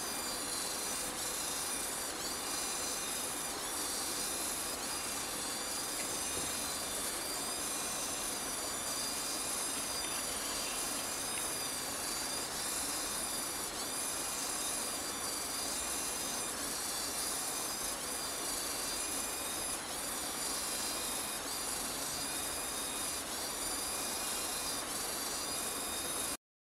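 Continuous-rotation (360-degree) servo motors spinning a small robot car's wheels with no load, a steady high-pitched gear whine whose pitch dips briefly every second or two.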